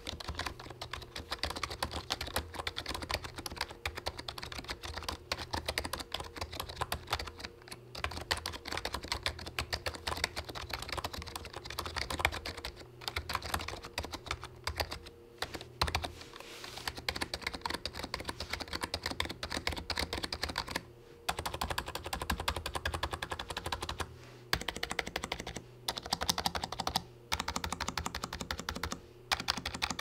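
Typing on a Roccat Magma Mini 60% keyboard with membrane switches: a quick, dense patter of soft, quiet key presses, broken by a few brief pauses.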